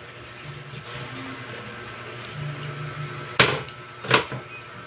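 Two sharp knocks about two-thirds of a second apart, roughly three and a half seconds in, over a low, faint hum in the room.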